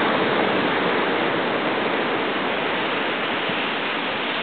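Ocean surf breaking and washing up the beach: a steady rushing hiss.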